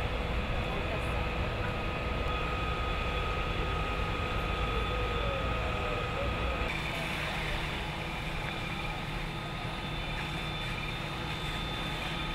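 Steady low rumble of fire-truck diesel engines and pumps running at a working fire, with a few steady whining tones over it. The mix changes abruptly about halfway through.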